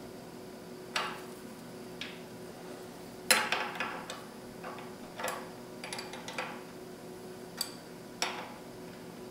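Thin flat stamped-steel wrenches, a 14 mm and a 12 mm, clicking and clinking against a steering-linkage jam nut and each other as the nut is snugged against the rod end. The clicks are irregular, about ten of them, with the loudest about a third of the way in, over a faint steady hum.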